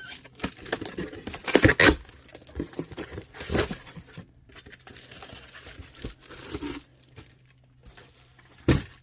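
Packaging being torn open and crinkled by hand as a package is unwrapped, in uneven bursts of tearing and rustling that are loudest about two seconds in. A short, sharp burst of noise comes near the end.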